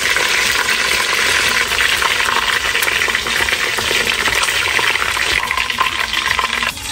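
Chicken pieces deep-frying in hot oil in a metal pot: a steady, loud sizzle. A metal slotted spoon scrapes and taps against the pot as the pieces are lifted out.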